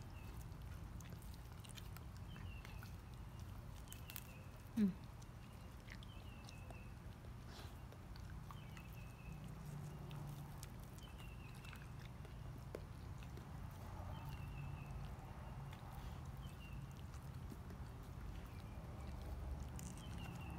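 A dog gnawing and licking at a raw whole lake herring held in a hand, giving faint wet chewing with scattered small clicks. A short rising squeak about five seconds in is the loudest sound.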